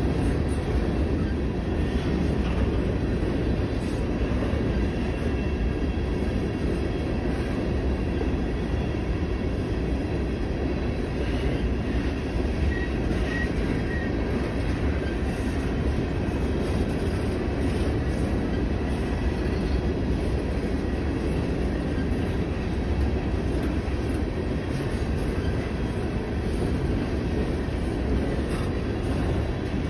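Coal train gondola cars rolling past, a steady rumble of steel wheels on rail. A few faint, short high squeaks come about halfway through.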